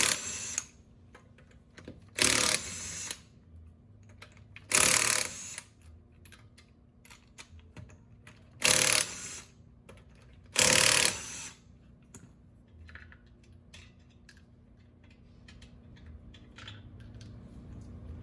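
A power impact wrench runs in five short bursts, spinning off the wheel's five lug nuts one after another. Light clicks and taps of the nuts and socket are heard between and after the bursts.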